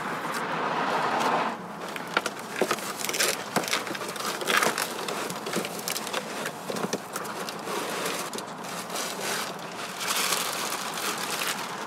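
Unpacking an electric unicycle from its cardboard shipping box: foam inserts and plastic wrapping rustle and crackle, with scattered clicks and scrapes.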